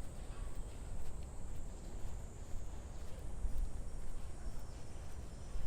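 Cicadas singing in the park trees, a steady high-pitched drone. Under it runs a low, uneven rumble on the microphone.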